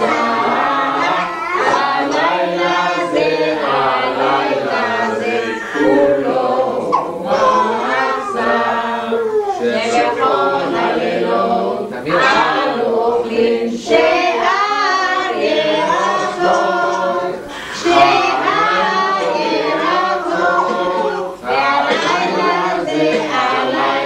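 A group of men's and women's voices singing together unaccompanied, a traditional Hebrew Passover Seder table song.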